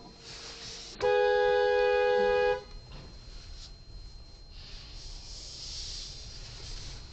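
Car horn sounding once, a steady blast of about a second and a half that starts and stops abruptly, over low road and engine noise.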